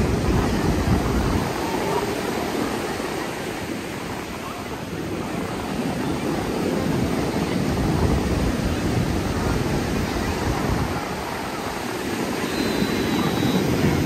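Ocean surf washing steadily on the beach, with wind rumbling on the microphone at times.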